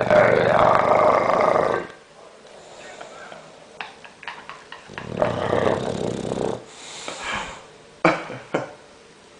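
Bulldog snoring loudly, with a rough, fluttering snore lasting about two seconds, a second snore about five seconds in, and a few short sharp snorts around eight seconds in.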